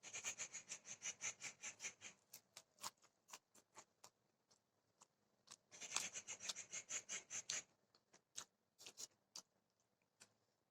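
Crunchy food being chewed close to the microphone: two bouts of quick, regular crunches, about seven a second, one at the start and one about six seconds in, with scattered single crunches and mouth clicks between.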